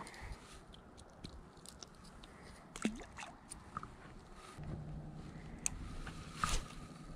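Faint clicks and rustles of handling a small perch on the line and an ultralight spinning rod and reel, with a few sharper ticks. A faint low steady hum comes in about halfway through.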